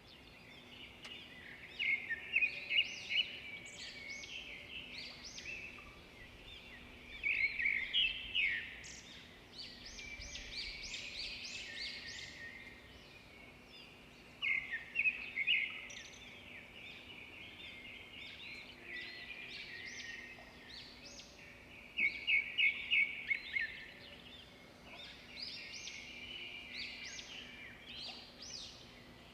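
Songbirds singing: bursts of quick, high chirping phrases every few seconds, over a faint steady hum.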